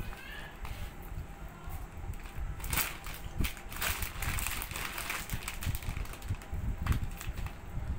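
Foil potato-chip packet crinkling as a hand rummages in it, with crunching of chips being eaten, in irregular crackly bursts.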